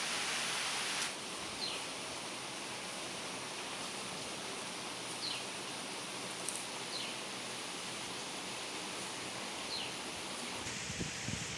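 Steady background hiss with four brief, high, downward-sliding chirps spread through it and a few faint ticks.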